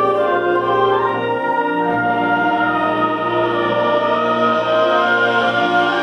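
High-school concert band playing slow, sustained chords on saxophones and brass, the harmony shifting about one and two seconds in.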